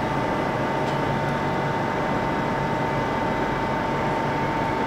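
Steady ambient hum of a large railway station hall: an even rushing noise with a constant faint whine, no single event standing out.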